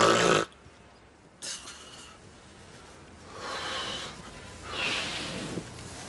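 A woman snoring heavily. It opens with a sudden, very loud snort, then a shorter snort, then two longer rasping snores a little over a second apart.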